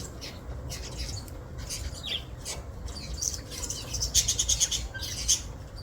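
Small birds chirping and twittering, with a quick run of rapid repeated chirps about four seconds in, over a low steady background rumble.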